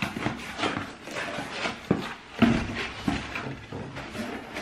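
Rustling and crinkling of parcel packaging being opened up and handled, with a couple of sharper knocks about two seconds in.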